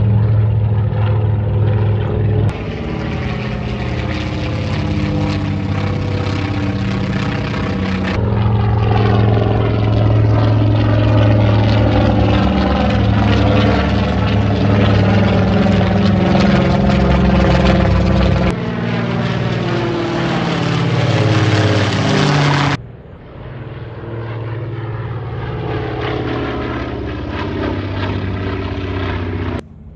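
Propeller-driven warbird aircraft flying over, a loud, steady engine drone with a strong propeller hum. The sound changes abruptly several times as one pass gives way to another.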